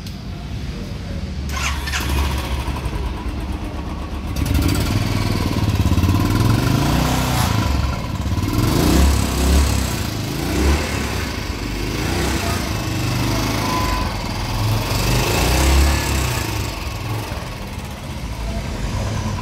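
Exhaust note of a Royal Enfield Bullet Trials 350's single-cylinder engine running, heard through its upswept off-road silencer. It gets louder about four seconds in, then rises and falls several times as the engine is revved.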